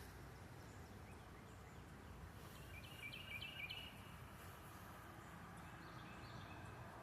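Quiet outdoor background with a short run of high bird chirps about three seconds in.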